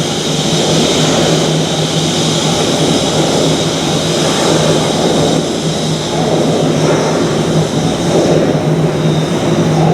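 A Thameslink Class 700 Desiro City electric train at the platform, giving a steady loud running noise with a constant low hum and a constant high tone over it.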